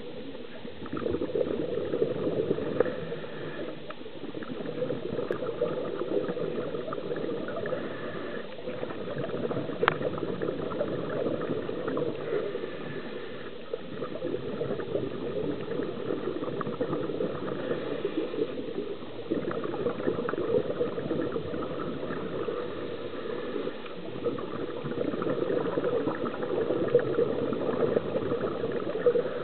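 Underwater bubbling from a scuba diver's regulator exhaust, a continuous muffled gurgle that swells and eases every few seconds. A single sharp click about ten seconds in.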